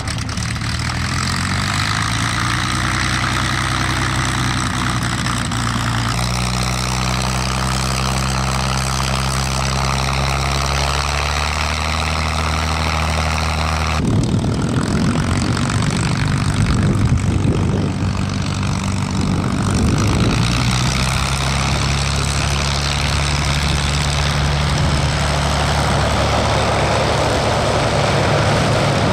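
P-51D Mustang Packard Merlin V-12 engines running at idle with propellers turning, in several clips cut together. The revs rise in the first few seconds, and the engine note changes abruptly about six and fourteen seconds in, the middle stretch rougher.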